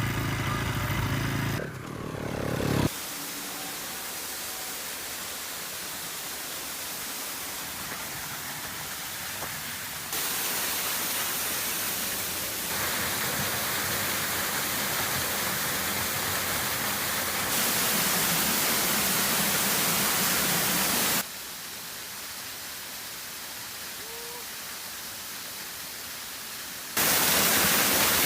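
Motorcycle engine running for the first few seconds, then a steady rushing noise that jumps abruptly in level and brightness several times.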